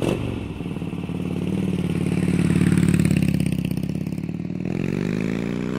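Motorcycle engine running with a pulsing rhythm, swelling a little, then revving up with rising pitch near the end.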